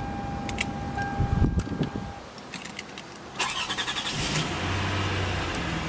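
A steady electronic chime tone for about the first two seconds. Then, about three and a half seconds in, the 2006 Lexus ES 330's V6 cranks on the starter, catches quickly and settles into a steady idle.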